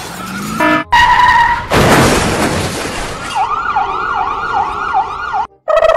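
Accident sound effects: a steady vehicle horn about a second in, a loud crash of noise, then a siren yelping in quick rising and falling sweeps, about three a second, ending in a steady siren tone.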